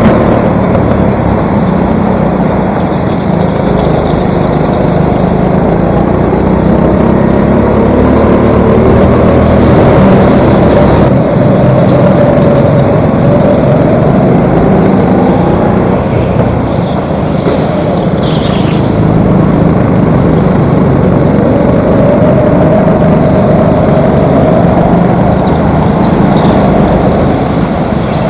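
Onboard sound of a rental go-kart's small engine running hard, its pitch rising and falling as the kart accelerates and slows, with other karts running close by.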